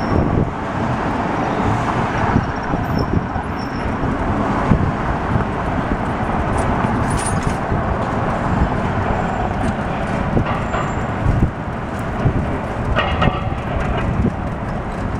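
City street traffic heard from a moving open pedicab: a steady rush of passing cars and taxis with a low rumble underneath. A brief higher-pitched sound comes near the end.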